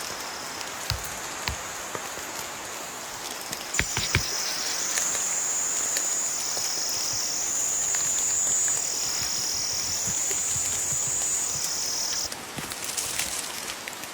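Steady rain with scattered drip ticks and a few low knocks. Over it, a high, shrill insect song starts about four seconds in, steps back and forth between two pitches, and cuts off near the end.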